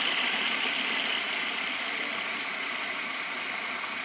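Small electric food chopper running steadily, its motor whirring as it chops walnuts.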